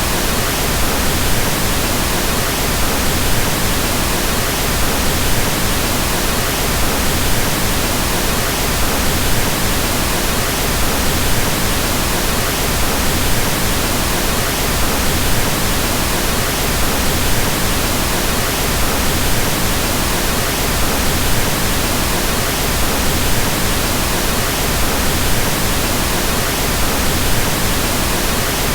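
Steady pink noise: a continuous, even hiss with its energy weighted toward the low end, like soft rain or wind, unchanging throughout.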